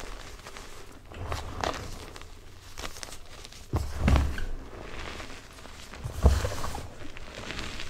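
Hands squeezing and crushing powdered BSN Plain Jane gym chalk (magnesium carbonate) in a bowl, giving soft, crunchy crumbling in irregular handfuls, the loudest about four and six seconds in.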